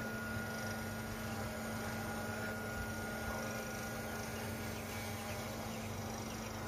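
Small quadcopter drone hovering overhead, its propellers making a steady whirring hum.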